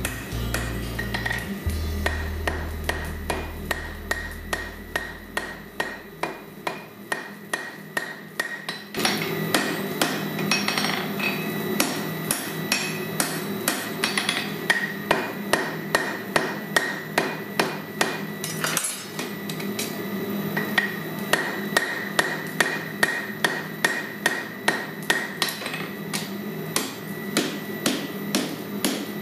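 Hand hammer striking a white-hot 20 mm round-bar chain link on a steel anvil, forge welding the link's joint. The blows come steadily, about two a second, and the anvil rings with a steady tone.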